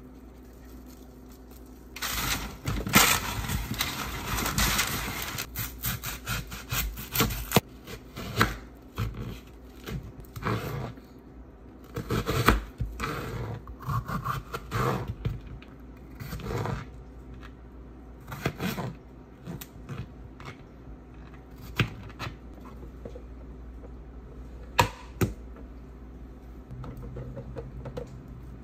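Food-prep noises: a knife cutting and scraping through vegetables, such as a red bell pepper, on a plastic cutting board, in irregular strokes. The strokes are densest in the first several seconds and sparser after that.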